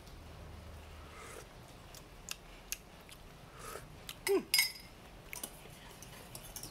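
Scattered clicks and clinks of a spoon against a cooking pot, the loudest a quick pair about four and a half seconds in.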